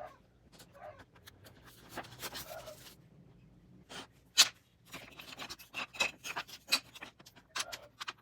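Scattered light knocks, clicks and short scrapes of wood and hand tools being handled, the sharpest knock about halfway through and a quick run of clicks near the end.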